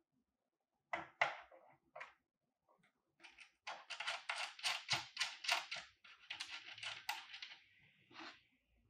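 Hands working the plastic gooseneck phone-holder clamp and mount of an LED ring light: a few separate clicks, then a quick run of clicks and scrapes, about four or five a second, for about four seconds.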